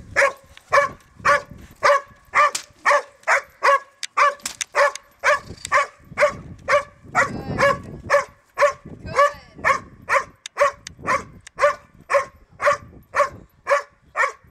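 Belgian Malinois barking steadily at a decoy in protection training, about two barks a second in an even rhythm, with a few whines mixed in around the middle.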